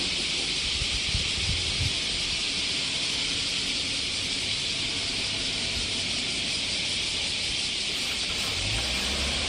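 Steady, unbroken high hiss of a summer cicada chorus, with a few low thumps of wind on the microphone.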